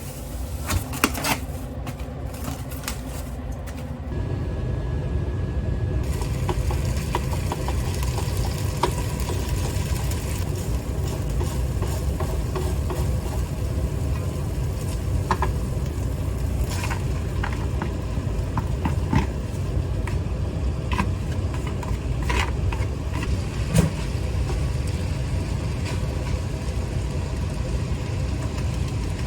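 Cooking sounds: a steady low rumble sets in about four seconds in, with scattered clicks and knocks of utensils against cookware.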